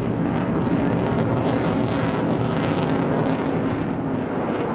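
A Eurofighter Typhoon jet passing overhead: loud, steady jet noise from its twin EJ200 turbofan engines.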